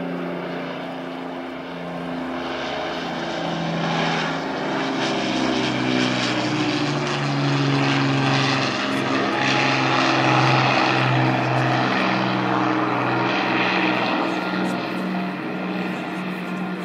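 Avro Lancaster bomber's four Rolls-Royce Merlin piston engines droning in a low flypast. The drone grows louder toward the middle and eases off near the end, its pitch shifting as the aircraft goes by.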